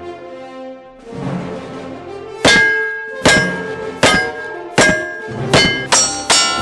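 Background music, then from about two and a half seconds in a string of about seven gunshots, each followed by the clang of a struck steel target ringing on. The shots come faster toward the end.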